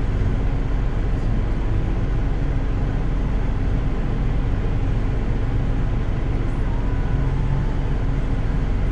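Steady in-cabin engine and road noise of a Honda S660 being driven, a low, even rumble with no changes in pace.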